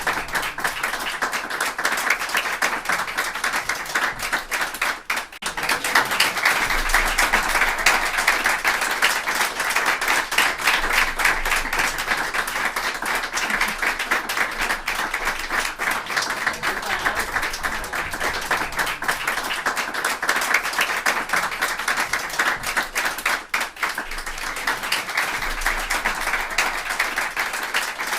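A group of people applauding: dense, steady clapping from many hands, briefly thinning twice before picking up again.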